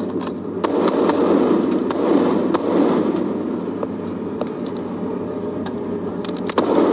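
Rifle gunfire: a dense, rapid crackle of shots with a few sharper, louder cracks standing out, clustered near the end.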